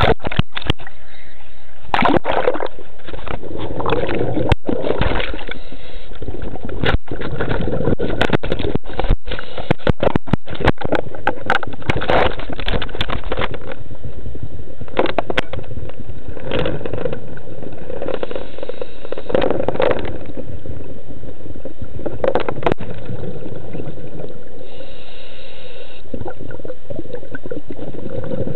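Muffled underwater sound through a camera housing: the diver's exhaled bubbles gurgling in swells every few seconds, with many sharp clicks and knocks, thickest in the first half.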